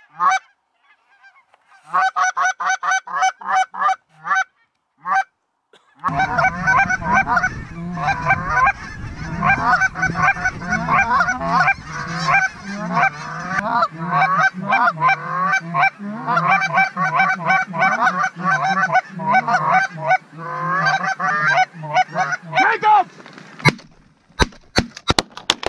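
Geese honking and clucking: scattered calls at first, then a dense, continuous chorus from about six seconds in. Near the end comes a rapid volley of 12-gauge shotgun shots as the hunters open up on the flock.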